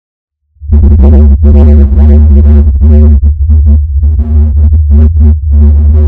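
Loud, heavily processed electronic music with a strong low bass drone and a buzzing pitched tone above it that keeps cutting out in short gaps. It starts about half a second in, after a moment of silence.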